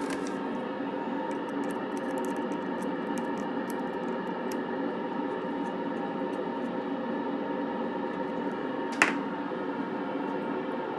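Patterson Model 16C valve communications receiver hissing with static between stations through an external speaker, faint steady tones running through the noise and small crackles scattered over it. A sharp click comes about nine seconds in.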